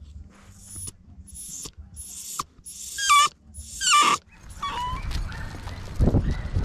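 Miniature schnauzer whining in a string of about six short, high-pitched squeals, with a low thump near the end.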